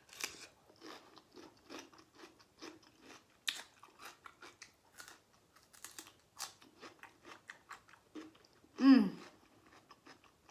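Close-miked wet chewing and crisp crunching of a mouthful, typical of cucumber and corn, in small clicks several times a second. About nine seconds in comes a short, louder voiced hum that falls in pitch.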